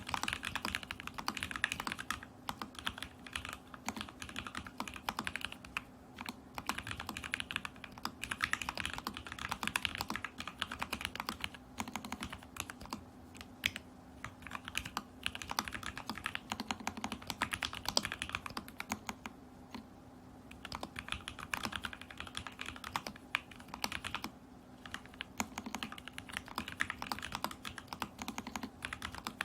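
Continuous typing on a custom Alice-layout mechanical keyboard in a stacked acrylic case, with lubed and filmed Lavender switches, a stack mount, a tape-modded PCB and Polycaps Whale keycaps. The keystrokes come in quick runs with a couple of brief pauses past the middle, over a faint steady hum.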